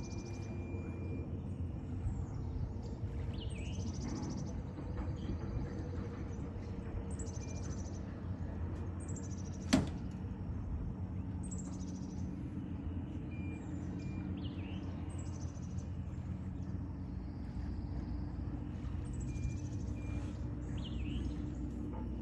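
A low, steady engine hum that gains a clearer pitched tone from about halfway, with a bird calling over it in short, high, falling notes every second or two. A single sharp click about ten seconds in is the loudest sound.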